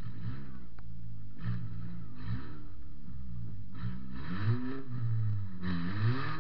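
Toyota Matrix's four-cylinder engine, heard from inside the cabin, revving up and falling back over and over, with short bursts of rushing noise on top, the longest near the end.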